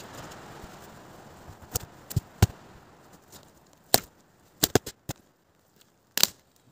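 Dead wood cracking and snapping as a piece is broken off a fallen log by hand: about eight separate sharp cracks, the loudest about two and a half, four and six seconds in.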